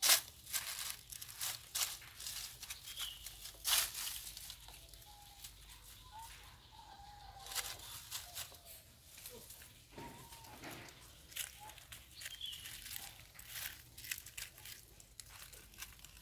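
Dry leaf litter and twigs crackling and rustling in sharp, irregular bursts as baby monkeys move about on them. A few faint, short chirping calls come through, around 3, 7 and 12 seconds in.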